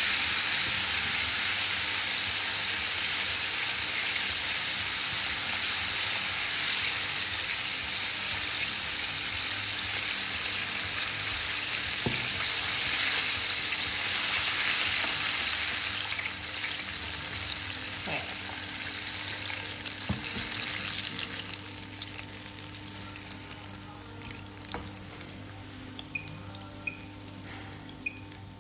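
Flour-coated chicken wings deep-frying in a pot of hot oil: a steady, dense sizzle that fades away after about twenty seconds, followed by a few light clicks.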